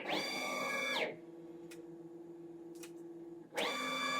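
CNC router's motors whining as the machine moves through an automatic tool change. The pitch rises, holds and falls for each move, with a quieter steady hum and two faint clicks between two moves.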